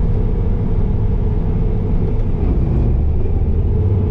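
Bobcat T595 skid steer's diesel engine running steadily under load as the machine is driven, a loud constant drone with a steady hum in it.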